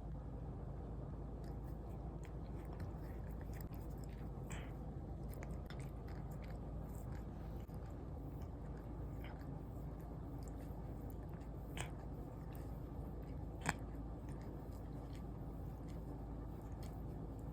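A Siberian cat eating: faint chewing clicks over a steady low room hum, with a couple of sharper clicks about two-thirds of the way through.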